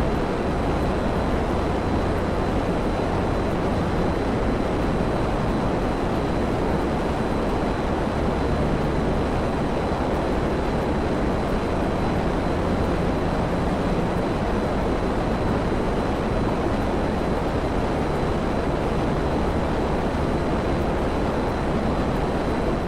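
Steady, unchanging rushing noise with a faint high whine running through it.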